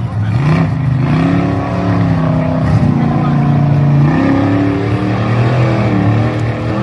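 Off-road buggy's engine revving hard under heavy load, its pitch rising and falling again and again as it claws up a steep dirt hill climb.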